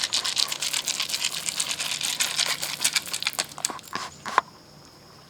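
Shelled corn kernels pouring out of a bottle onto a bait pile: a dense, rapid rattle that thins to a few last kernels after about three and a half seconds.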